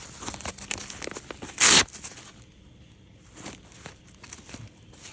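Nylon chest-rig gear being handled: rustling and small clicks of straps and fabric, with one short, loud rip about a second and a half in.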